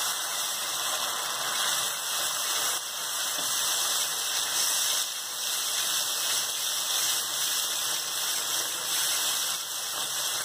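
Hot caramelized sugar and butter sizzling and bubbling steadily in a pan as cold milk and cream are poured in and stirred, the liquid hitting the hot caramel.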